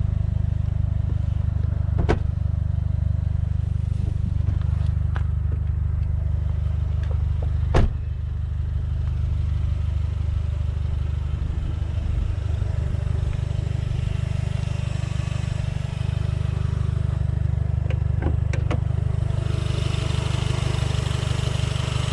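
Alfa Romeo 159 TBi's 1.8-litre turbocharged four-cylinder engine, fitted with a full custom exhaust, idling steadily. A few sharp clicks and knocks sound over it, the loudest about eight seconds in. Near the end the engine sound grows brighter.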